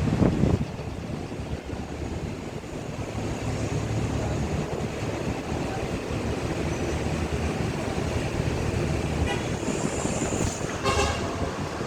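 Ship's engine running with a steady low rumble. Near the end there is a short, higher-pitched sound.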